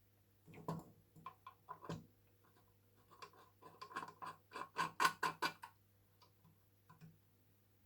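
An irregular run of light clicks and scrapes, about twenty in all, bunched most closely about four to five and a half seconds in, from small parts being handled and worked by hand.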